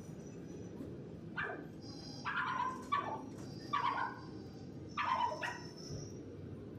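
A dog barking several times in short bursts, over a steady low background hum.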